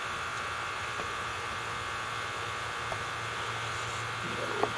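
A steady buzzing hum, with a short click near the end.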